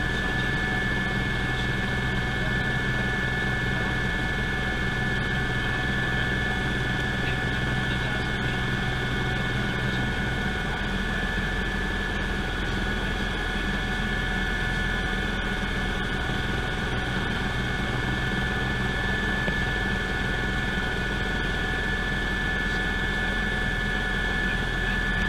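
Steady in-cabin drone of a Eurocopter EC120 Colibri helicopter in flight, with its Turbomeca Arrius 2F turboshaft and rotors running evenly and a steady high whine over the low hum.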